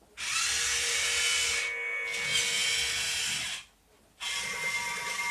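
Rocket Men 6029 remote-control toy robot giving a loud hissing, whirring sound with steady whining tones in it. It runs in two long stretches, with a short break just before four seconds.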